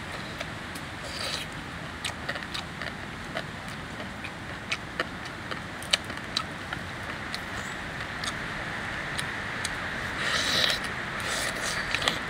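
Eating sounds from hands picking through a plate of cooked banded bullfrogs and biting into the pieces: scattered sharp clicks and crunches, with a denser patch of chewing noise about ten seconds in, over a steady background hiss.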